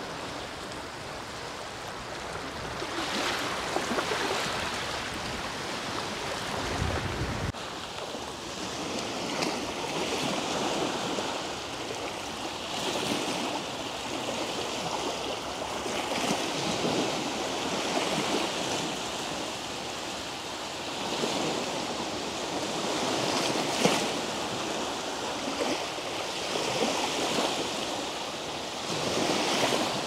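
Small sea waves breaking and washing up a sandy shore, the surf swelling and easing every few seconds. A short low rumble of wind on the microphone comes about seven seconds in.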